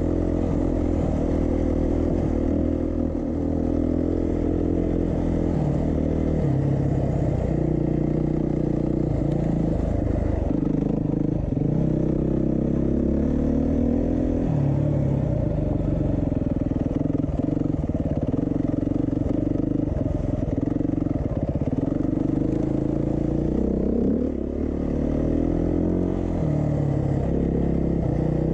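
Beta 390 RR-S dual-sport motorcycle's single-cylinder four-stroke engine running steadily under way, its pitch stepping and gliding up and down several times with throttle and gear changes.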